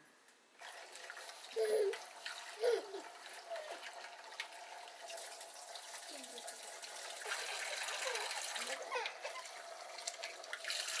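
Tap water running into an aluminium pot as rice is swished and rinsed in it by hand; the running water gets louder in the second half. A couple of short, louder sounds stand out about two and three seconds in.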